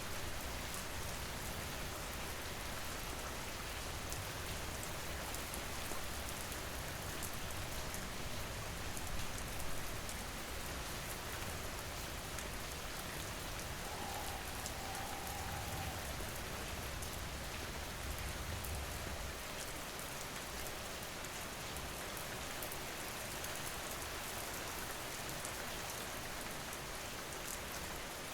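Steady rain falling, with a dense patter of fine drops and a low rumble underneath that eases off about two-thirds of the way through.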